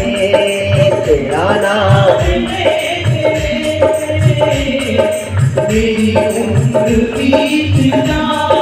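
Devotional bhajan playing through loudspeakers: a sung vocal line with held, sliding notes over a steady beat on a hand drum.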